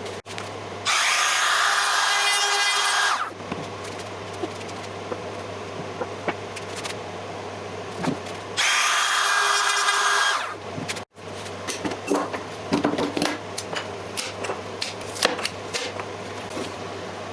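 A power tool cutting into wood in two short bursts of about two seconds each, its motor whining under the cutting noise. Later come irregular light clicks and knocks of work on the piece.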